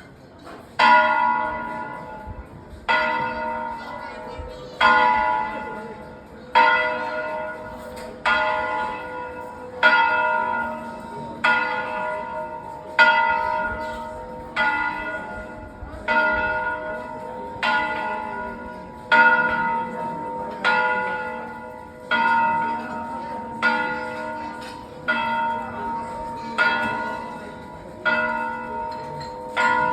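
Church bells ringing in a slow, even series of single strokes, about one every one and a half to two seconds. Each stroke rings on and fades under the next.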